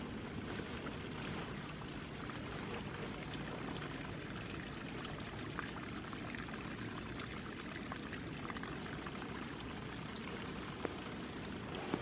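Small unfrozen forest stream trickling and gurgling steadily over stones and past ice at its edges, with one brief tap near the end.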